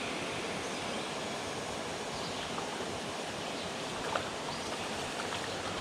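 Steady rushing of water pouring down a large spillway, an even continuous roar, with a faint tick or two about four seconds in.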